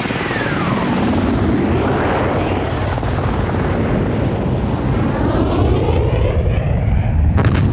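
AH-64A Apache attack helicopter flying past, its rotor and engine noise loud and steady with the pitch sweeping down as it passes. A sudden sharp crack comes near the end.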